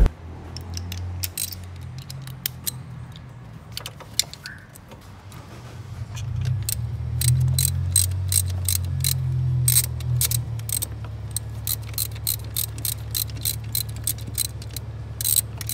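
Ratchet wrench clicking as the alternator bolt is turned to slacken the serpentine belt: scattered clicks at first, then a steady run of a few clicks a second from about six seconds in. A low hum sits underneath, louder in the middle.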